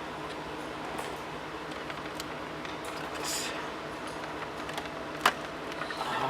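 Hands working car wiring connectors and plastic clips: faint rustling and scraping, with one sharp click about five seconds in, over a steady low electrical hum.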